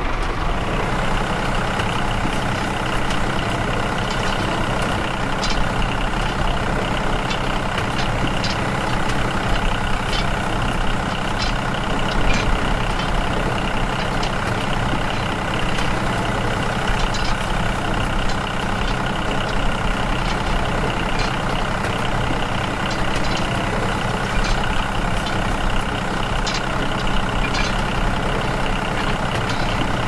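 Tractor engine running steadily at an even pitch, with light ticks roughly once a second.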